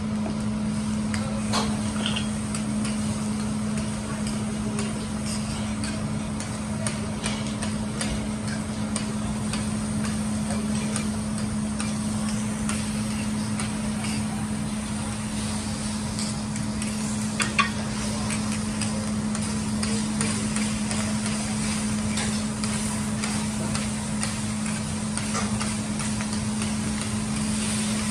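Food sizzling on a flat steel teppanyaki griddle while a metal spatula and knife scrape and tap against the plate in irregular clicks, cutting and turning cubes of steak and chicken. A steady low hum runs underneath.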